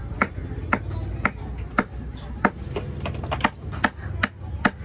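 A long, heavy cleaver-like knife chopping through fish flesh into a wooden log block: about a dozen sharp chops, roughly two a second, coming a little faster near the end.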